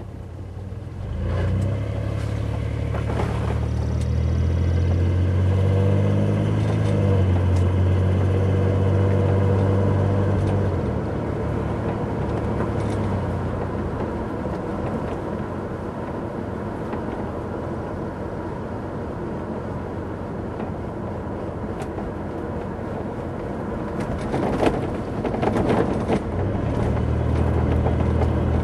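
Car driving: the engine rises in pitch as it accelerates over the first several seconds, then settles into steady tyre and road noise. A few knocks and rattles near the end as the car goes over bumps in the road.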